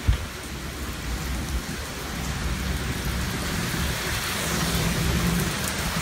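Heavy downpour of rain, a steady hiss that grows louder from about two seconds in. A single short thump right at the start.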